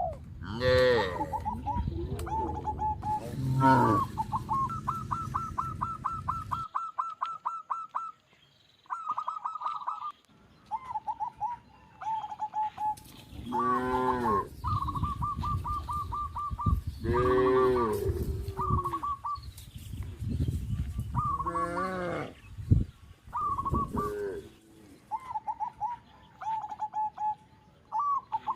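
Cattle mooing about half a dozen times, each a call of about a second that rises and falls. Between the moos, birds call in long runs of short repeated notes.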